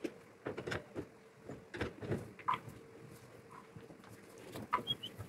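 Plastic food bowls knocking and clattering against a wire cage top as they are handled and set down, a run of separate knocks. Near the end come a couple of short high squeaks from the guinea pigs.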